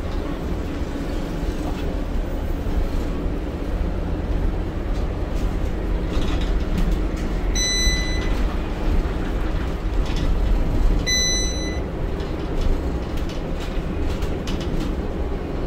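Interior sound of a Scania K230UB city bus under way: its five-cylinder diesel engine and the road noise make a steady low rumble. Two short electronic beeps sound, about halfway through and again a few seconds later.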